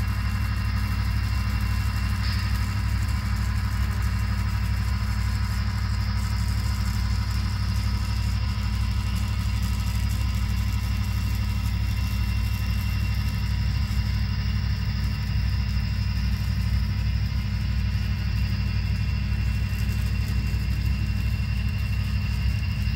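Model-train sound decoders playing EMD SD40-2 diesel locomotive engines, pulling hard as a heavy coal train climbs a grade. A deep, steady rumble comes from an added subwoofer system, with a steady high whine over it.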